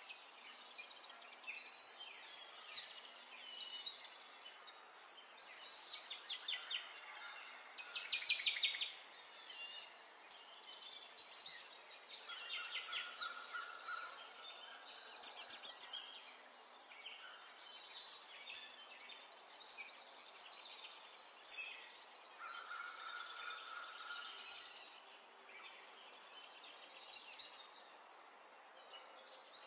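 Birds singing: a run of short chirping and trilled phrases, one every second or two, with a few brief clear whistles in between.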